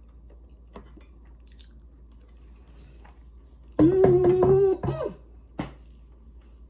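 A woman chewing softly with faint mouth clicks, then about four seconds in a loud closed-mouth "mmm" of enjoyment held on one note for about a second and falling away at the end.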